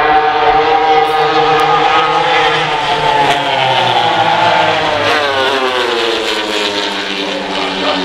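Racing motorcycle engine at high revs as the bike runs down the straight. Its note holds and rises slightly, then drops sharply in pitch about five seconds in as the bike passes close by, and falls away after.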